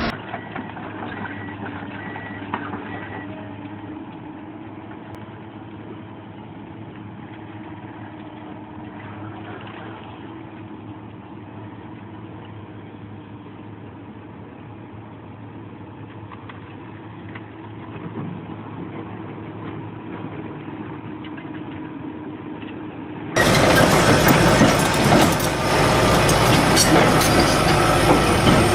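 Excavator diesel engine running steadily at a moderate level. About 23 seconds in the sound cuts abruptly to a louder, fuller machine noise with scattered knocks.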